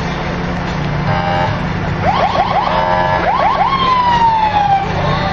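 Electronic siren running through its tone patterns: a short steady tone, a run of quick rising whoops, another steady tone and more whoops, then one long falling wail. A steady low hum runs underneath.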